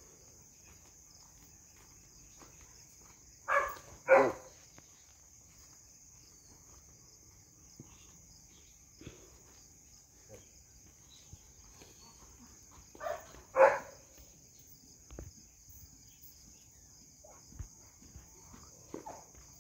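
Belgian Malinois puppy barking: two quick barks close together about three and a half seconds in, and another pair about thirteen seconds in. A steady high insect drone runs underneath.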